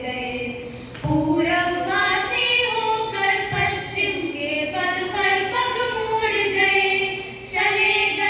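Two girls singing a Hindi song, with long held notes that glide in pitch; the singing breaks off briefly about a second in and again near the end.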